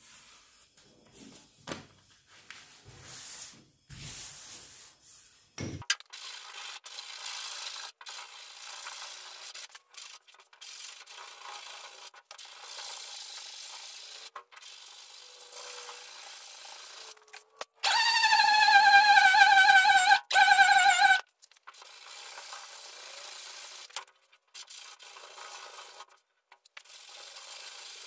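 Body filler on a truck bedside being sanded by hand with 80-grit paper: a steady rasping rub with short breaks between strokes, after a few light knocks at the start. About 18 seconds in, a loud high squeal with a slightly falling pitch cuts in for about three seconds and then stops.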